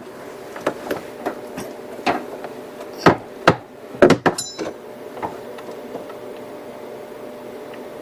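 Metal hand tools clinking and knocking against fittings in an engine bay while a power steering line is worked loose: about a dozen sharp, irregular knocks, the loudest around three to four seconds in, then a steady hum alone.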